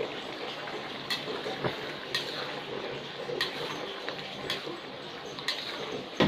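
A cooking utensil stirring butter pepper chicken in a pot, knocking against the pot about once a second, over the steady hiss of the cooking food.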